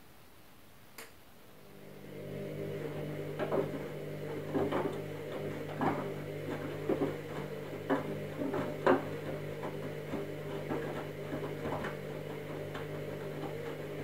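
Candy front-loading washing machine in its wash phase: a click, then about two seconds in the drum motor starts with a steady hum. It turns the drum while the wet load and water inside slosh and thud irregularly.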